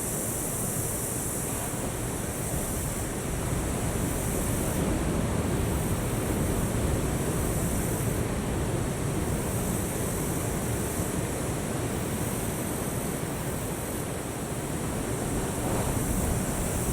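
Ocean surf: a steady rush of breaking waves that swells and eases slightly.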